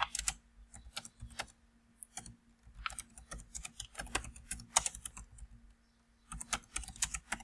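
Typing on a computer keyboard: irregular runs of key clicks as a phrase is typed out, with a brief pause about two-thirds of the way through.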